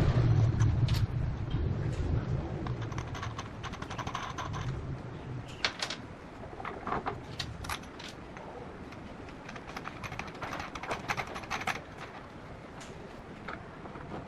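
Angle grinder motor spinning down, its hum fading over the first few seconds, followed by scattered light clicks and taps of tools and metal being handled.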